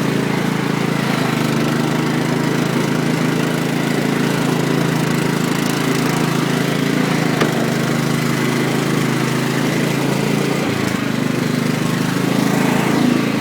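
Riding lawn mower engine running steadily as the mower drives along, with a slight change in pitch about eleven seconds in.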